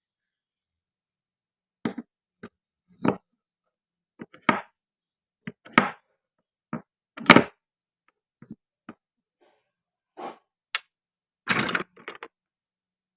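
Plastic and wooden toy fruit and kitchen pieces being cut and handled: a string of short, separate clicks and knocks at uneven intervals, the loudest about seven seconds in and a quick cluster near the end.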